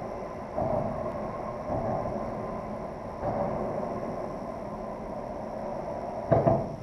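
Road traffic crossing the bridge overhead: a steady rumble that swells several times, then two loud thumps close together near the end before it fades.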